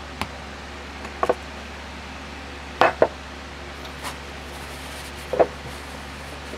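A few sharp clicks and knocks of hard parts being handled, the loudest a quick pair about three seconds in, over a steady low hum.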